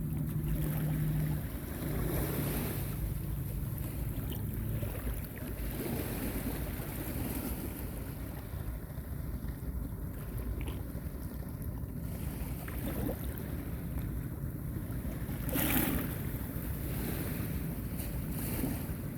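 Small sea waves washing on a beach, with wind buffeting the microphone and a louder wash of surf about three quarters of the way through. A motor's steady hum, likely a passing boat, fades out in the first few seconds.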